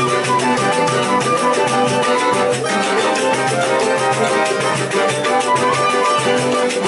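Live choro ensemble playing: a flute carries the melody over a strummed cavaquinho and seven-string guitars, in a quick, steady rhythm.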